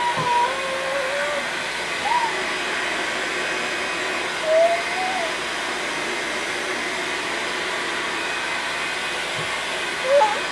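Vacuum cleaner running steadily, a constant noise. A baby makes a few brief vocal sounds over it: near the start, about two and four and a half seconds in, and near the end.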